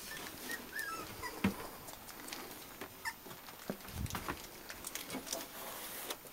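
Young Bedlington whippet puppies whimpering with a few short high squeaks, mostly in the first second and a half. Rustling and a few knocks run under them.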